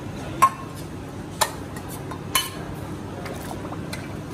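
Steel utensils clinking against a stainless steel bowl and cooking pot: three sharp metallic clinks about a second apart, then a few fainter ticks, over a steady low background hum.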